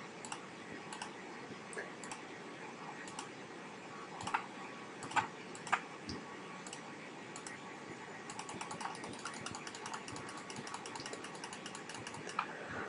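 Faint computer mouse button clicks as keys on the Windows on-screen keyboard are clicked one at a time. They come about once a second at first, with a few louder clicks around four to six seconds in, then quicken to several a second in the second half.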